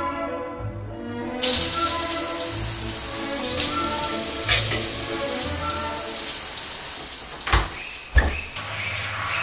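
Shower water turned on and spraying onto a tiled floor: a steady hiss that starts suddenly about a second and a half in, over background music. Two sharp thumps near the end.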